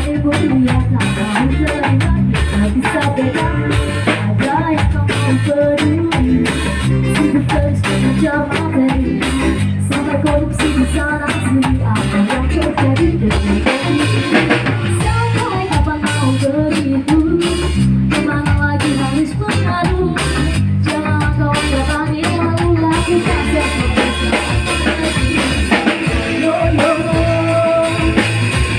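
Live reggae band playing, with a singer over drum kit, bass and guitar, heard through the mixing desk.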